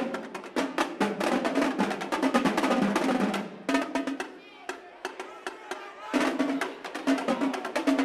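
Marching drumline playing snare drums and tenor drums: rapid stick strokes and rolls, falling quieter past the middle and coming back in loud about six seconds in.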